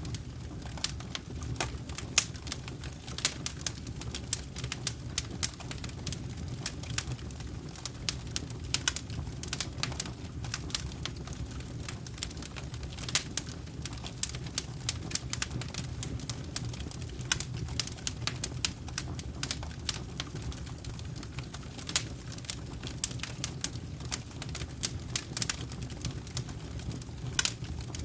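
Wood fire in a fireplace crackling: frequent, irregular sharp pops and snaps over a steady low rumble of the flames.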